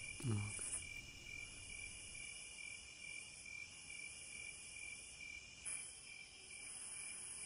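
Insects chirring steadily, a high constant drone.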